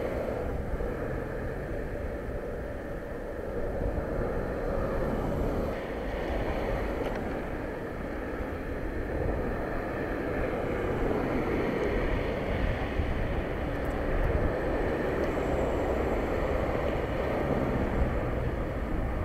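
Steady rushing noise of a bicycle in motion: tyres rolling on the path and the wind of riding, swelling and easing slightly.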